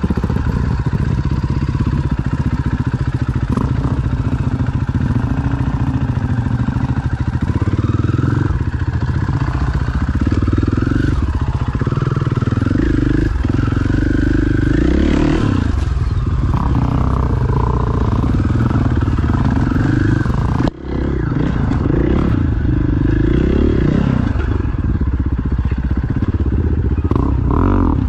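Enduro motorcycle engine heard from the rider's own bike, run at low speed with the throttle blipped again and again, so the pitch rises and falls as the bike crawls over rough ground. The sound drops out briefly about three-quarters of the way through.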